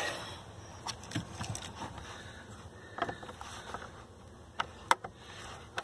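Faint, scattered clicks and handling noise of plastic wiring-harness connectors on a truck's instrument cluster being worked free by hand, their push-button releases pressed, over a low steady hiss.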